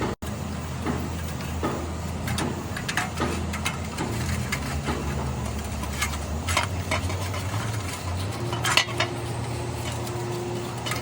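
Metal parts and tools clinking and tapping in scattered sharp clicks, over a steady low hum.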